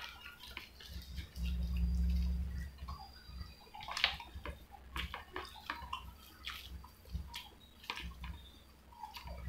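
Close wet eating sounds: fingers squishing chutney-soaked medu vada and wet chewing, heard as scattered small clicks and smacks. A low rumble comes about a second and a half in and lasts about a second.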